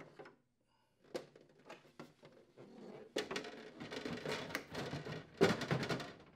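Plastic ice bucket of a Whirlpool side-by-side refrigerator being handled and slid into its compartment in the freezer door: a few light clicks, then plastic scraping and rubbing against plastic, with a louder knock about five seconds in as it goes into place.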